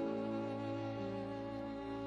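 Slow, mournful background music of sustained bowed strings, with held notes changing about once a second.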